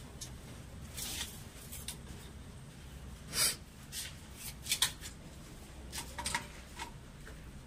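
Hands handling and adjusting plastic CPVC pipe fittings: a few short scrapes and clicks at irregular moments over a low steady hum.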